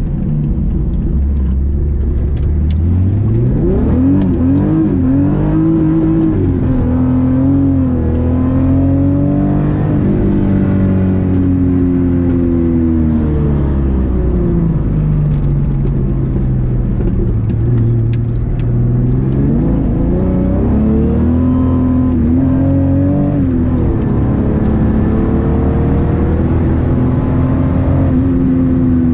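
VR6 narrow-angle six-cylinder engine and exhaust of a Volkswagen Golf Mk2, heard from inside the cabin while driving. The revs climb a few seconds in and hold. They drop away around the middle, then climb again and settle.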